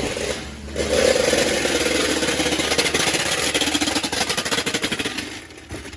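A loud power tool hammering rapidly in a shop, starting about a second in and dying away near the end.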